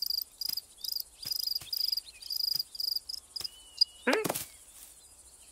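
Cartoon insect chirping like a cricket: short high pulsed trills repeated about twice a second. About four seconds in comes a short falling cat cry as the cat leaps at the insect.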